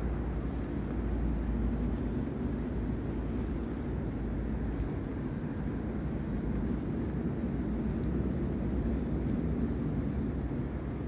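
Steady low rumbling background noise with no clear single source, even in level throughout.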